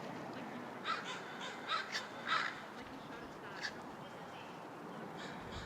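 American crow giving a run of short, rough calls in the first two and a half seconds, then another single call a second later.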